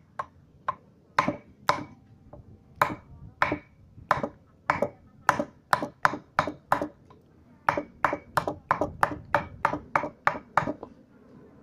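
Steel kwaiken-Bowie knife blade being struck repeatedly into a wooden log, about two dozen sharp chops that come faster in the second half and stop about a second before the end.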